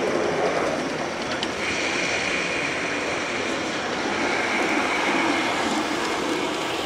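G scale model trains running on garden railway track: a steady rumble of wheels and motors, with a high steady whine that sounds twice.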